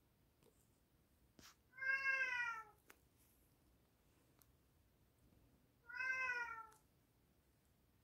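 A cat meowing twice, each meow just under a second long and falling in pitch at the end, about four seconds apart.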